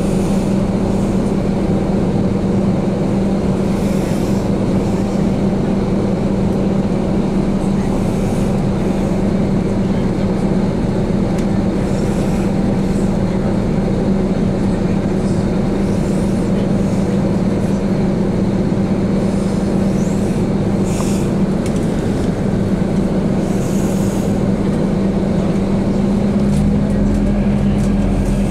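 City bus driving, heard from inside the passenger cabin: a steady engine and drivetrain hum with rumbling road noise.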